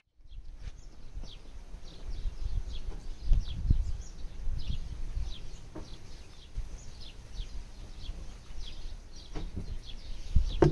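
Small birds chirping: short, falling chirps about three a second, over a low, uneven rumble.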